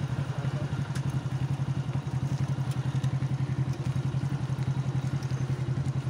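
An engine idling steadily, a low even putter with fast regular pulses throughout.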